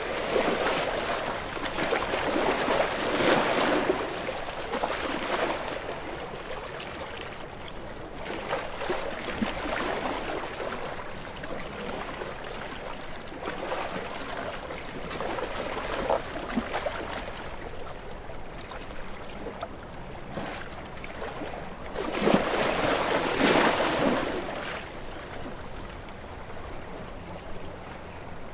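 Ocean waves breaking and washing up on the shore, a hissing wash of surf that swells and fades. The biggest surges come at the start and again about two-thirds of the way through.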